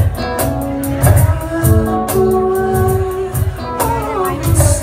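Live band playing a song: a steady beat about twice a second with cymbal strokes under sustained keyboard notes, and a falling pitch glide near the end.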